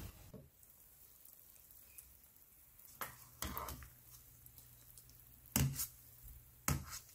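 Quiet kitchen work sounds: a few sharp light clicks and knocks of utensils or dishes, spaced a second or so apart, over a faint low steady hum.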